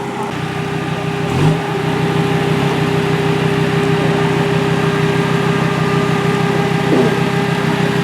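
Rally car engine idling steadily, growing a little louder about a second in, with a brief low rise and fall in pitch about a second and a half in.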